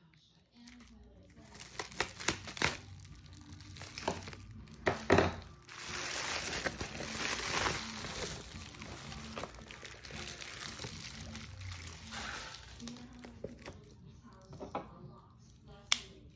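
Foil-lined insulated bubble mailer being cut open with a box cutter and pulled apart: a few sharp clicks and knocks in the first five seconds, then several seconds of continuous loud crinkling of the foil, easing into softer rustling and a final click.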